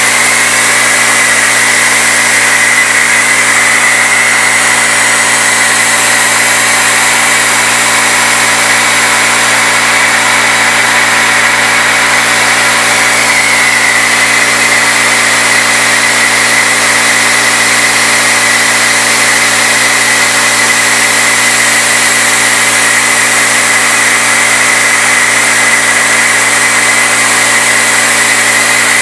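CNC-retrofitted Bridgeport knee mill cutting aluminum with a 3/8-inch end mill, spindle at 2200 RPM, with a steady high tone over the running of the machine.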